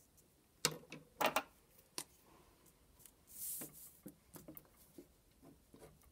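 Several sharp clicks and taps as a pen and paper are handled on a desk, a brief rustle of paper sliding, then faint small scratches of a pen starting to write on paper.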